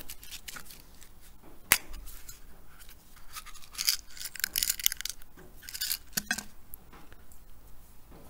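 Small metal welding staples and the plastic welder kit's case being rummaged through: a sharp click about two seconds in, then a few seconds of light clinking and rattling.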